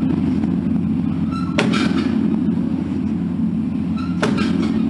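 Large temple bell struck twice, about two and a half seconds apart. Each strike starts a fresh swell of its low, humming ring, which carries on between strikes.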